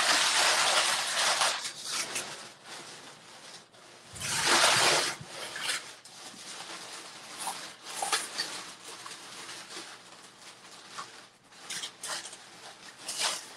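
Someone rummaging through things by hand, with rustling that is loudest at the start and again about four seconds in. Softer rustles and small clicks and knocks follow.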